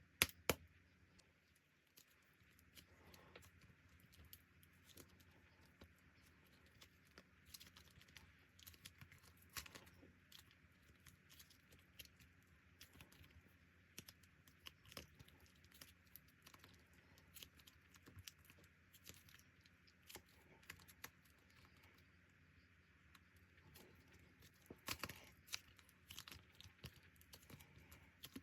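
Slime being stretched and squeezed by hand: a steady run of faint sticky clicks and small pops, with a few louder pops at the very start and about 25 seconds in.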